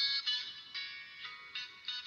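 A Samsung GT-C3010 mobile phone playing a ringtone melody through its small speaker: a quick run of bright electronic notes, thin and tinny, with no bass.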